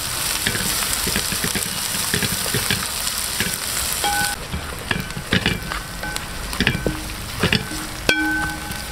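Shallots, garlic, green chillies and curry leaves sizzling in hot oil in a large metal pot while a wooden spatula stirs them, scraping and knocking against the pot. The hiss eases about halfway through, and the spatula's knocks stand out after that. This is the sauté stage, with the aromatics frying until they wilt and colour.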